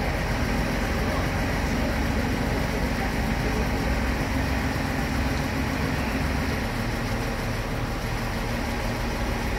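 A steady low engine hum under a rumble of wind on the microphone.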